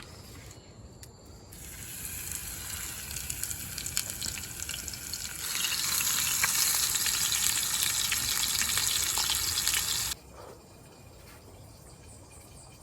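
Fish frying, a steady sizzle that grows louder about halfway through and cuts off suddenly near the end.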